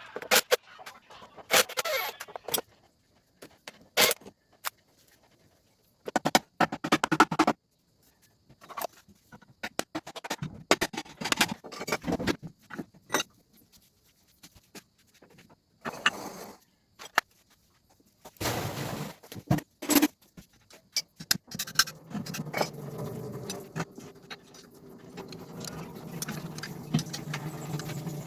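Metal transmission parts clinking, knocking and rattling as they are handled and taken apart, in irregular separate clanks. For the last several seconds a steady low hum runs beneath them.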